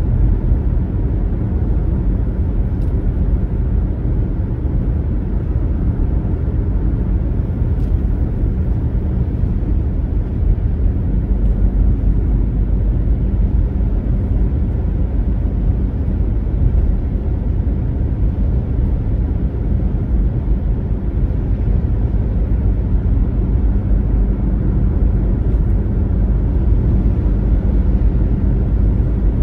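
Steady low rumble of a car driving along a road: tyre and engine noise at an even pace.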